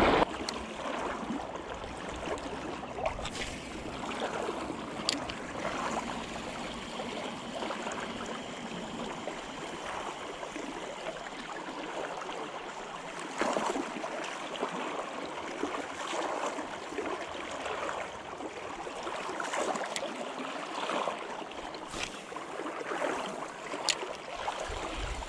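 Flowing river current running steadily around a wading angler, with a few faint, sharp clicks now and then.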